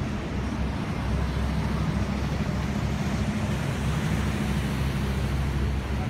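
A steady low engine rumble under a continuous hiss, with no break or change.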